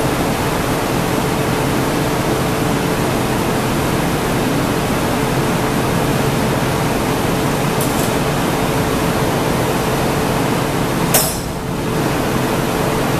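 Steady roar of a glassblowing hot shop: gas burners of the furnace and glory hole with cooling fans running, under a faint steady hum. A single sharp knock sounds near the end.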